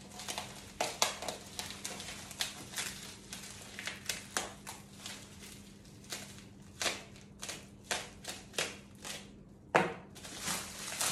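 Plastic wrapping crinkling and rustling in irregular crackles as it is torn and pulled off a set of exhaust headers by hand, with a louder thump about ten seconds in.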